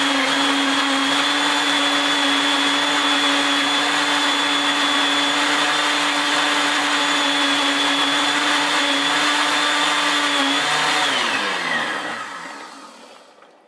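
Countertop blender running on frozen smoothie mix, a steady motor tone with a high whine over the churning. About eleven seconds in it is switched off and the pitch falls away as the blade winds down.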